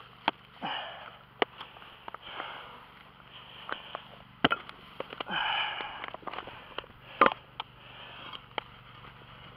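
A few short breathy puffs of air, roughly two to three seconds apart, among scattered sharp clicks and knocks of handling.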